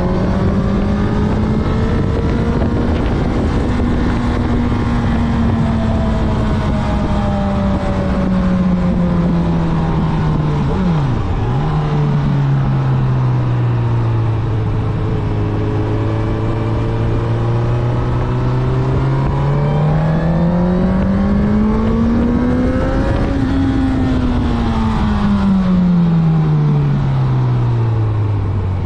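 Honda CB1000R's 998 cc inline-four engine pulling on the road, its revs rising and falling. The pitch drops sharply and briefly about eleven seconds in, climbs again to a peak past two-thirds of the way through, then falls steadily.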